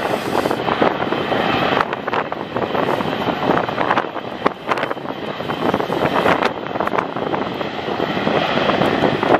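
Boeing 777-300ER's General Electric GE90 jet engines running at taxi power, a steady rushing jet noise as the airliner taxis on the runway. Gusts of wind buffet the microphone throughout.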